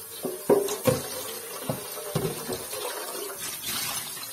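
Kitchen tap running and splashing into a stainless-steel sink as an air fryer's plastic-coated inner pot is rinsed and tipped under it. Several sharp knocks as the pot is handled, the loudest about half a second and a second in.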